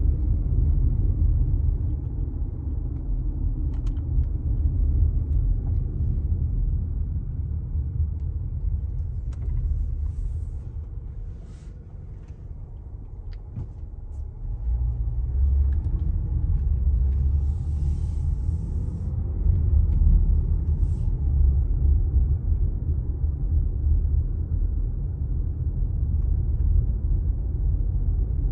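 Low, steady rumble of a car's engine and tyres heard from inside the cabin while driving slowly. It eases off for a couple of seconds about midway, then picks up again.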